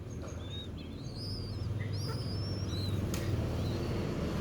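A small bird's high, thin chirps, a rapid series of short arching notes in the first three seconds, over a steady low rumble that grows louder.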